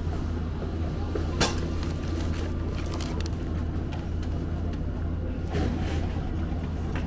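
A plastic-wrapped meal pack is taken out of a vending machine's delivery flap, giving a few clicks and crinkles, over a steady low hum.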